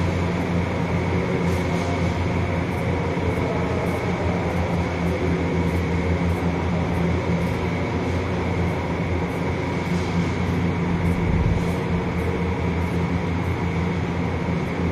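Steady electric hum of ventilation fans. Faint ticks come about every half second, the footsteps of someone walking.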